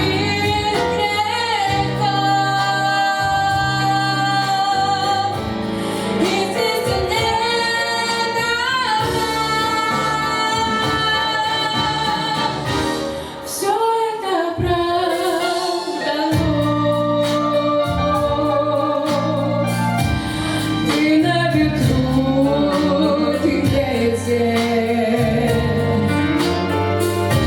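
A young female solo singer sings over instrumental backing with a bass line, holding long notes with vibrato. The music briefly drops away about halfway through, then comes back.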